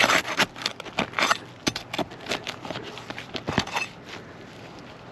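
Irregular sharp clicks and scrapes of metal tools working on asphalt shingles, prying out roofing nails to pull a damaged shingle free. The noises thin out and go quieter after about four seconds.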